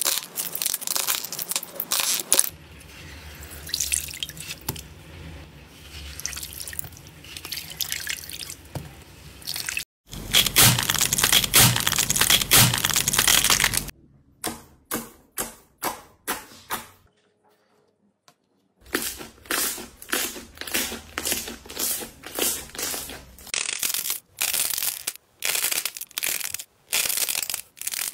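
Slime and soft putty being squeezed, pressed and kneaded by hand at close range: wet, sticky squishing and crackling that changes from clip to clip. There is a loud continuous stretch around the middle, then a brief silence, then a long run of separate short squishes.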